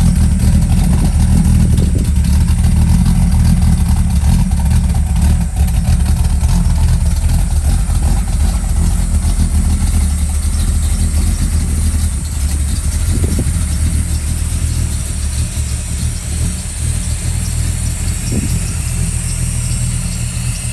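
Pontiac 428 V8 in a 1968 Firebird idling steadily, heard at the exhaust: an even, deep rumble that gets a little quieter about halfway through.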